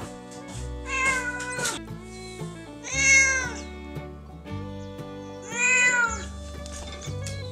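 A calico cat meowing three times, calling up at food held above it, the middle meow the loudest. Background music plays throughout.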